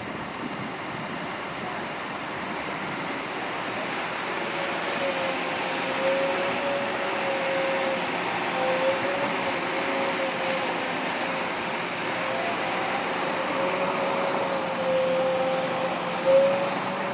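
Heavy diesel earth-moving machinery, an excavator and a dump truck, running steadily, with a wavering whine over the engine noise and a short louder bump near the end.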